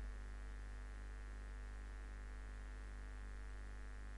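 Steady, faint electrical hum and buzz in the recording, many tones held level, with no other sound.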